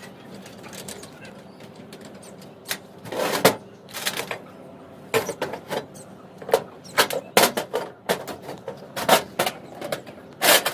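Irregular knocks and clicks of coated iron pipes and clamps being handled and fitted together while a grow bag stand frame is assembled.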